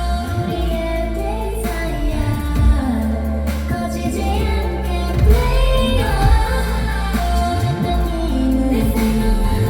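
K-pop song performed live at a sound check: female voices singing a melody over a pop backing track with a heavy bass, heard through a concert venue's PA system.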